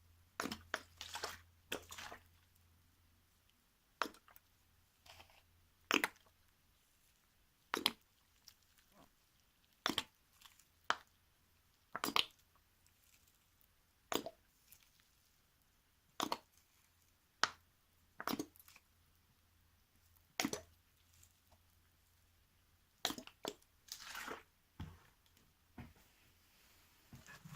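A series of short, sharp crunchy clicks and taps, roughly one every one to two seconds, from small things being handled close by.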